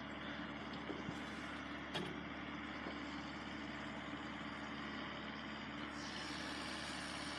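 Steady low engine rumble of an idling vehicle, with a rising hiss near the end.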